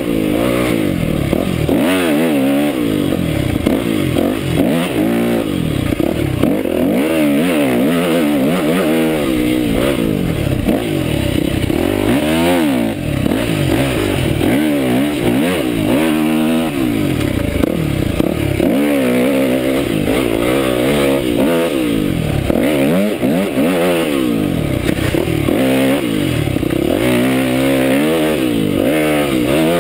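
Yamaha YZ250F dirt bike's four-stroke single-cylinder engine being ridden on a trail, its revs rising and falling over and over as the throttle opens and closes.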